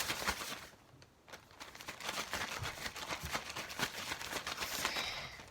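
Resealable plastic bag crinkling and rustling in rapid crackles as it is handled, with a brief lull about a second in.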